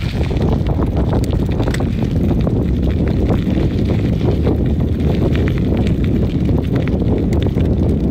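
Wind buffeting the microphone of a camera on a moving road bicycle, with the tyres rumbling steadily over rough asphalt. Scattered light clicks and rattles run through it.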